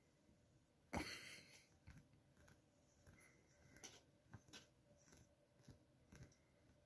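Cat nosing and sniffing at bedding: faint, scattered short clicks and rustles, with one louder rustle about a second in.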